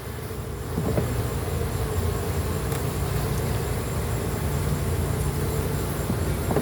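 Honeybees buzzing in a steady, continuous hum from an opened hive, with a couple of faint clicks.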